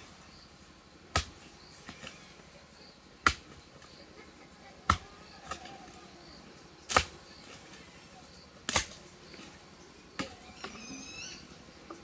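Repeated sharp strikes of a hand tool, roughly one every two seconds, with a few lighter knocks in between. A short high-pitched call sounds near the end.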